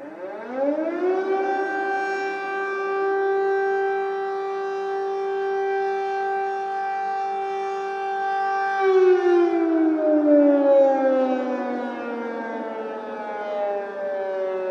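Air-raid siren sounding an alert: it winds up to a steady wail within about a second, holds it for around eight seconds, then slowly falls in pitch.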